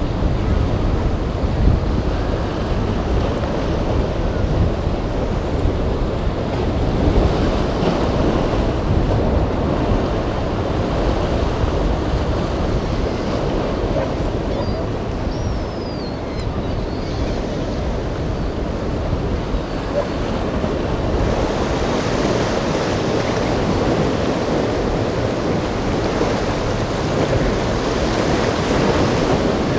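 Rough surf with waves breaking and washing, a steady rush of water noise, with wind buffeting the microphone.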